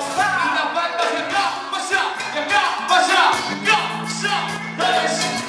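A live band playing Latin dance music: singing voices over electric bass, keyboard and percussion.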